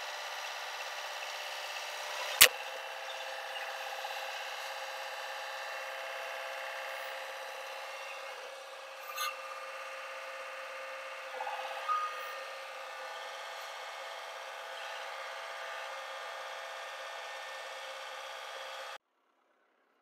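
Compact tractor's diesel engine running steadily as its loader lifts and carries a heavy load, with one sharp knock a couple of seconds in and a few smaller knocks later. The sound cuts off abruptly near the end.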